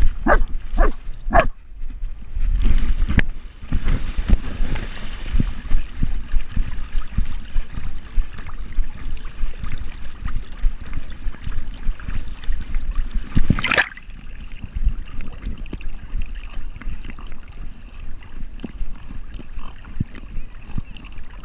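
A dog gives three short whines, then water sloshes and splashes close around it as it swims, heard from a camera on its head. One loud sudden splash-like noise comes about two-thirds of the way through.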